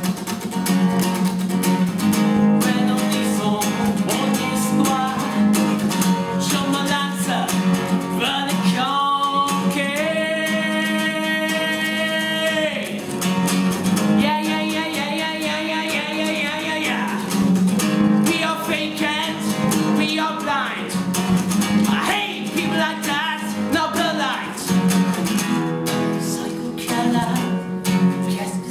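Acoustic guitar played live with a voice singing along, including one long held note about ten seconds in.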